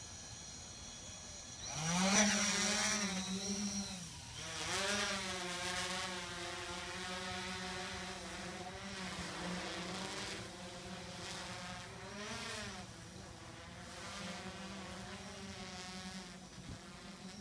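Yuneec Typhoon H hexacopter's six electric motors and propellers: a faint high whine at idle, then about two seconds in a sudden louder buzz as it throttles up and lifts off. The buzz dips briefly, swells again, and keeps wavering in pitch as the drone climbs and holds in the air.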